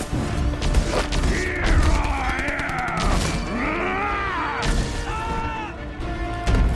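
Movie sound effects of an explosion and a giant robot smashing out of a barn: heavy crashes and thuds of breaking wood and metal over a deep rumble. Through the middle come whirring mechanical sweeps that rise and fall in pitch, the robot's moving parts.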